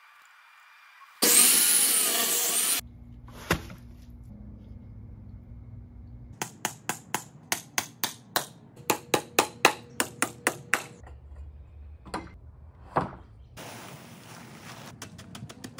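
A handheld power tool cuts into a wooden post in one loud burst of about a second and a half. Several seconds later comes a fast, even run of sharp knocks, about three a second, lasting about five seconds, then a few single knocks.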